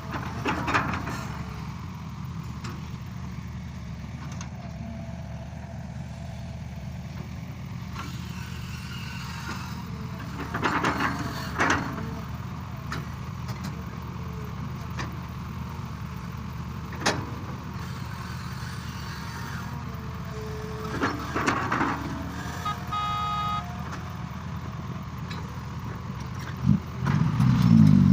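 Excavator's diesel engine running steadily at work, with scattered knocks and clanks. A brief high tone sounds about 23 seconds in, and the engine gets much louder near the end as it revs up.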